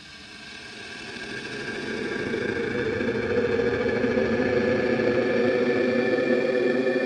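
Electronic music: a dense, buzzing, engine-like drone with several steady tones that swells in over the first three seconds, then holds steady.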